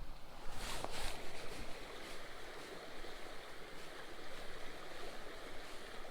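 Small creek water flowing steadily, with a few faint clicks about a second in.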